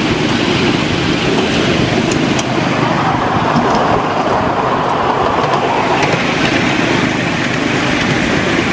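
Miniature railway train running along the track, heard from a passenger car: a steady, loud rumble of the train and its wheels on the rails.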